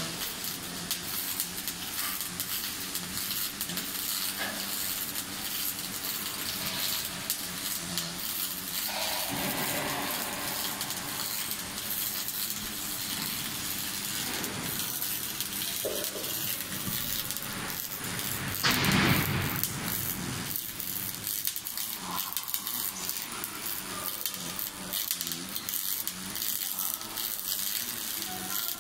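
Automatic arc welding on a steel tank shell: a steady crackle and hiss from the torch on a column-and-boom welding manipulator, with a louder hissing surge about nineteen seconds in.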